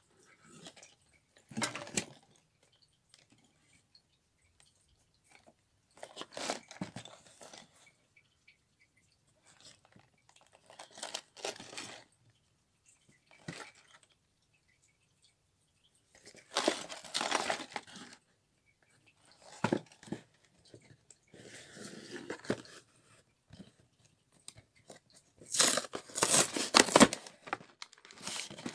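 A cardboard LEGO box is handled and turned over, giving short separate bursts of scraping and rustling. Near the end comes a longer, louder run of tearing and crinkling as the box's perforated flap is torn open.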